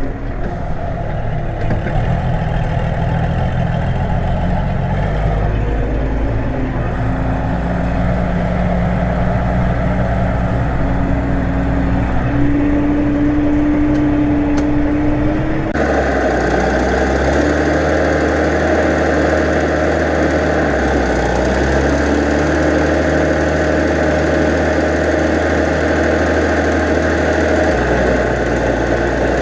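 New Holland 8160 tractor's diesel engine running steadily while ploughing with a four-furrow reversible plough. The engine note shifts abruptly about halfway through.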